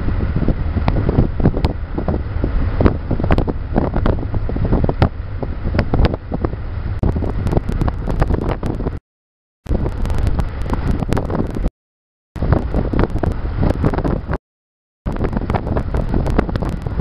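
Heavy wind buffeting the microphone, a loud low rumble with crackling, cut by three brief complete dropouts to silence in the second half.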